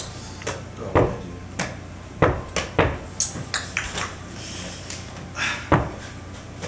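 A series of irregular knocks and thuds, about a dozen over several seconds, from a mini basketball being bounced and slammed around a mini hoop.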